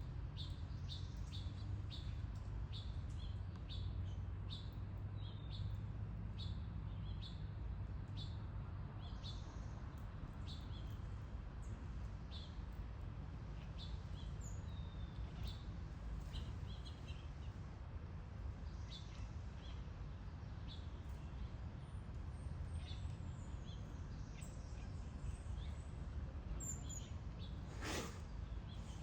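Small birds chirping over and over, short high calls coming quickly at first and then more sparsely, over a steady low background rumble. A brief sharp noise comes near the end.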